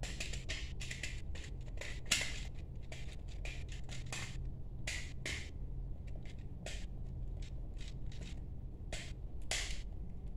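Screwdriver scraping and turning against the metal screw terminals of a 13A wall socket: short, irregular scratchy strokes, with a sharper click about two seconds in.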